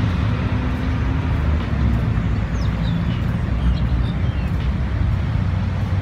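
Steady low rumble of outdoor urban ambience, with a few faint high chirps around the middle.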